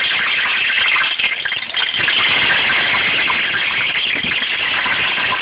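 Whole potatoes frying in very hot, smoking oil in a stainless steel pot: a loud, steady sizzling hiss with fine crackling as more potatoes are lowered in.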